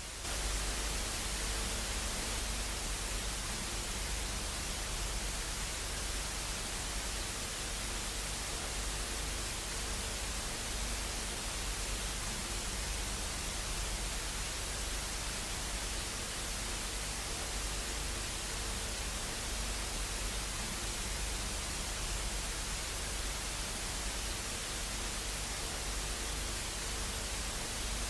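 Steady hiss of broadcast static, like a lost television signal, with a low hum beneath it. It jumps louder right at the start, then holds even.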